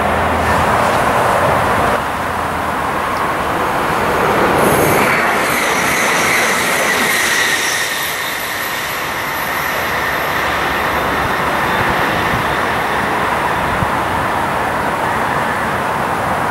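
Electric passenger train passing close on a curved track, its wheels running over the rails. About five seconds in, a high wheel squeal from the steel wheels on the curve starts and lasts a few seconds.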